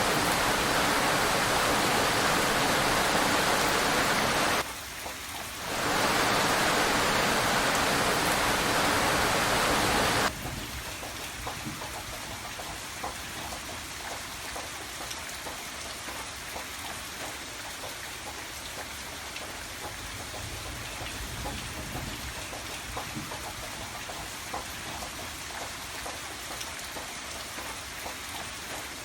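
Heavy rain, a dense steady hiss, which dips briefly about five seconds in. About ten seconds in it cuts suddenly to lighter rain, where individual drops are heard as many small ticks over a softer hiss.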